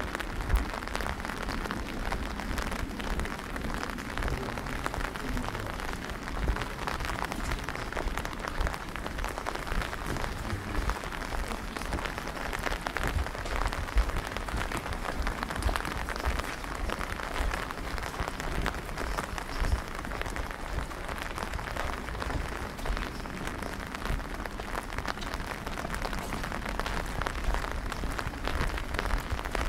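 Steady rain pattering, a dense, even hiss of many small drop impacts.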